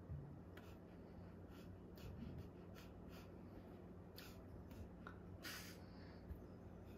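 Near silence: a faint low room hum with scattered soft clicks and rustles from a signer's hands and sleeves, and one slightly longer soft hiss about five and a half seconds in.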